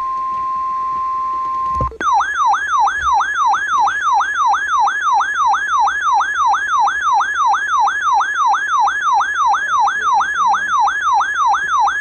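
NOAA Weather Radio's steady 1050 Hz warning alert tone, which cuts off about two seconds in. The weather radio's own loud alarm then sounds, a siren-like tone warbling up and down about three times a second, signalling a severe thunderstorm warning.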